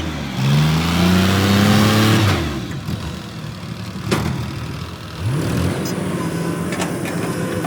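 Cartoon vehicle engine sound effect: an engine revs up with a rising hum for about two seconds and then cuts off. A sharp click comes about four seconds in, and after a short upward sweep an engine hum runs steadily.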